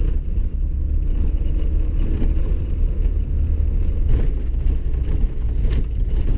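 Steady low rumble of a vehicle driving slowly over an ice-covered road, heard from inside the cab.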